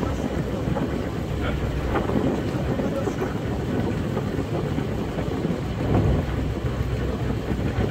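Steady low rumble of a small tour boat underway on a canal, mixed with wind buffeting the microphone.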